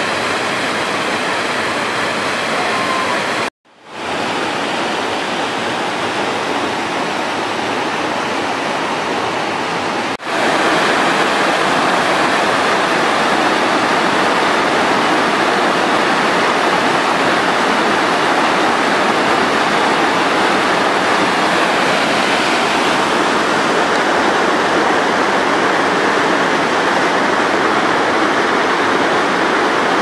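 Waterfall of muddy floodwater pouring down sandstone ledges: a steady, dense rush of white water. It cuts out for a moment about three and a half seconds in, then fades back, and is louder after a cut about ten seconds in.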